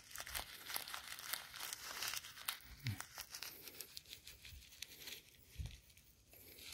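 Light crinkling and rustling from hands handling and scattering coriander seeds while sowing: many small, quick crackles.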